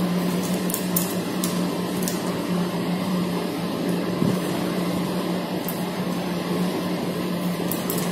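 Steady machine hum with one strong low tone running through it, and a few light high clicks over it.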